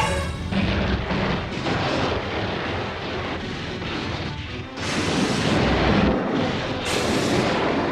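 Sci-fi energy-beam and explosion sound effects, a dense blasting noise that surges anew several times, over background music.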